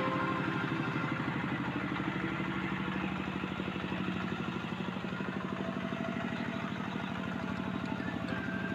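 Hand tractor (power tiller) engine running steadily with a rapid, even chugging pulse as it ploughs a flooded rice paddy.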